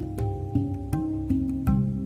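Background handpan (hang drum) music: struck, ringing notes in a gentle flowing rhythm, a couple of notes a second.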